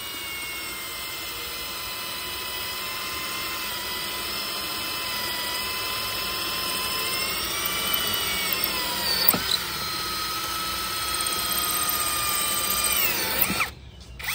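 Boshun 1065BL cordless drill running steadily under load, boring through a rubber flip-flop sole into a concrete brick. Its motor whine grows slowly louder and dips briefly about nine seconds in. It winds down and stops near the end, followed by a few sharp clicks.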